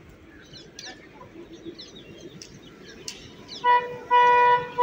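Birds chirping, then near the end a horn sounds a short blast followed by a longer one, from a DEMU train approaching a level crossing.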